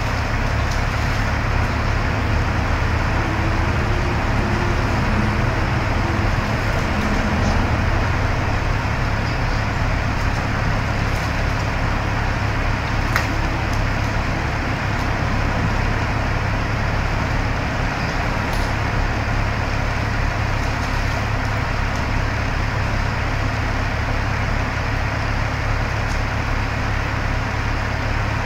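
An engine running steadily: an unbroken drone with a low hum underneath.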